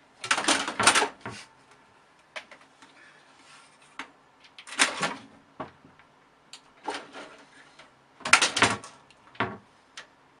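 A cat clawing and scrambling up a computer tower case, heard as irregular clusters of short scratches and knocks a second or two apart.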